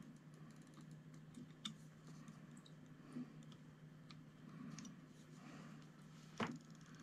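Faint scattered clicks and taps of soldering tools against a radio's circuit board and battery tab during desoldering, over a faint steady low hum; the sharpest click comes near the end.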